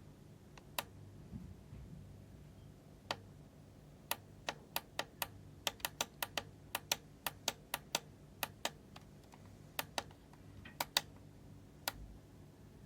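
A run of about two dozen sharp clicks: a few spaced out at first, then several a second with short pauses between, trailing off near the end.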